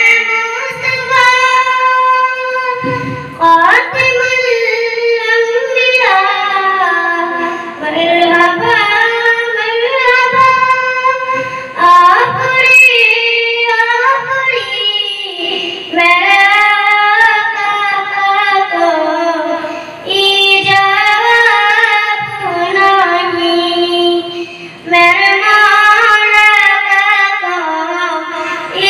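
A young girl singing a naat, an Islamic devotional song, solo and without instruments into a microphone. She sings in melismatic phrases of a few seconds each, with short breaks for breath between them.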